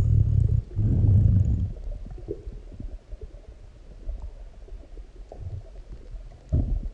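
Deep human stomach growls and gurgles from a full stomach digesting a large meal: two loud low rumbles in the first couple of seconds, fainter gurgles through the middle, and another loud growl near the end.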